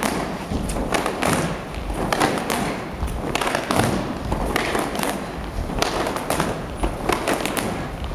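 Rapid, irregular thuds and slaps of several kung fu students' feet stamping on a sports-hall floor, their uniforms snapping as they move through a Choy Lay Fut form, with echo from the hall.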